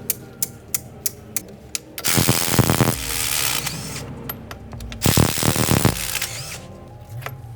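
Evenly spaced sharp clicks, about three a second, then a power tool run in two loud bursts of about a second each with a rapid rattle, used on the wheel hub of a wheel loader.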